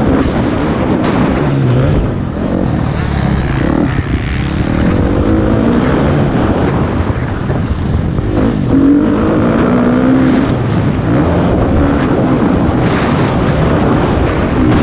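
Motocross bike engine heard on board at race speed, its pitch rising and falling repeatedly as the rider accelerates, shifts and rolls off the throttle over the dirt track.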